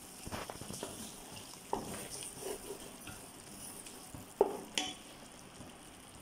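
Wooden spatula stirring and scraping a thick prawn masala in a pot, over a light sizzle of the frying masala. There are a few sharper scrapes against the pot, the loudest two together a little after the middle.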